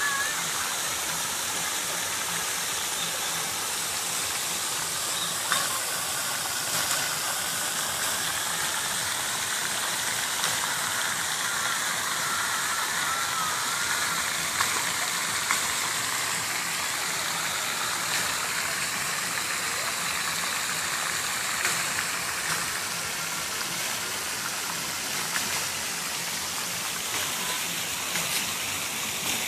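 Steady rushing outdoor ambience, an even hiss like running water or distant city traffic, with a few faint wavering whistled notes.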